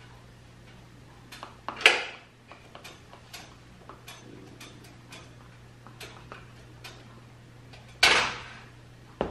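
Light taps and clicks of a spoon against a measuring cup and cardboard cocoa box as cocoa powder is shaken out to measure it, with two louder sharp clattering noises, one about two seconds in and one near the end. A steady low hum runs underneath.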